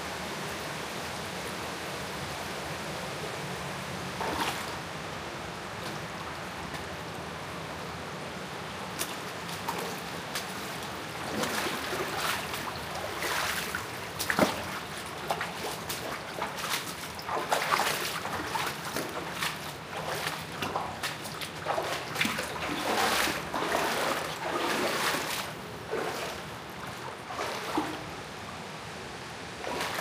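Steady rush of running water, joined from about ten seconds in by irregular splashing and sloshing that comes and goes for the rest of the time.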